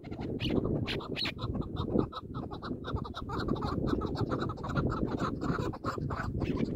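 Chukar partridges calling: a fast, uneven run of short chucking notes, several a second, over a steady low rumble.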